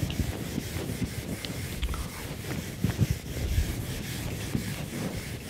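Whiteboard eraser rubbing across a whiteboard, wiping off marker writing in repeated strokes.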